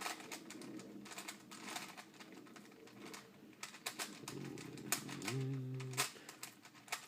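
Plastic 4x4 Rubik's Cube being turned in quick layer moves during a solve: a fast, irregular run of clicks and clacks. A short hummed note comes about five seconds in.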